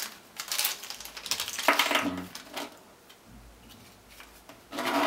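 A small plastic zip bag crinkling as it is handled and opened, with light clinks of small mounting hardware inside it. The sounds come in short irregular bursts, with a quieter stretch in the middle.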